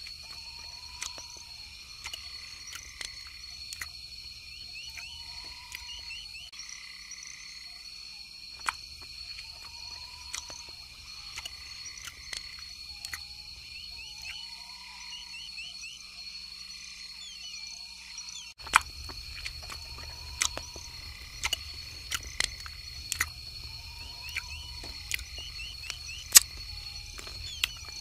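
Outdoor nature ambience: a steady high insect drone with fast chirps, a short low call repeating about every two seconds, and scattered sharp clicks. About two-thirds of the way in it switches abruptly to a louder bed with a low rumble and more frequent, sharper clicks.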